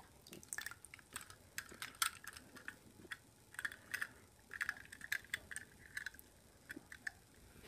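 Faint, irregular clicks and taps of a small toy car being handled against hard plastic water tubs, several a second.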